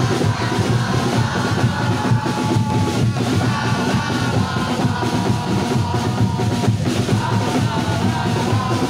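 A large crowd of football ultras singing a chant together, loud and continuous.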